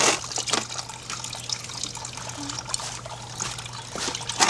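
Water trickling and dribbling out of a pool pump and its hoses as the pump is disconnected, with scattered small knocks and clicks and a louder knock near the end.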